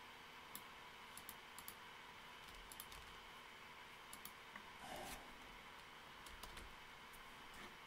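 Faint typing on a computer keyboard: scattered, irregular keystrokes over a low steady hum.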